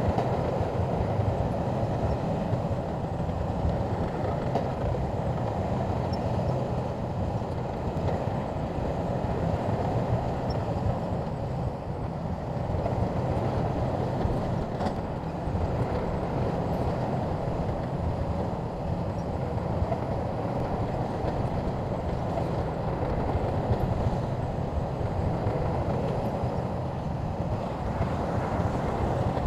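SHANTUI crawler bulldozer working, its diesel engine running steadily with a heavy low rumble and rattling.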